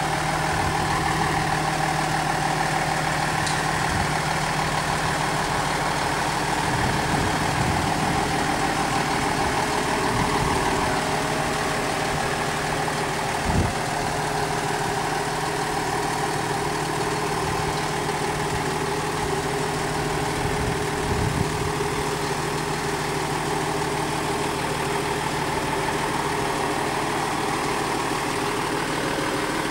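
Fire engine's diesel engine idling steadily with a low, even hum while parked. A single brief thump sounds about halfway through.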